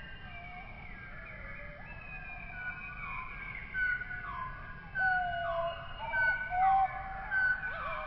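A chorus of overlapping animal calls, each a clear tone that slides up or down in pitch, coming thicker and louder from about four seconds in.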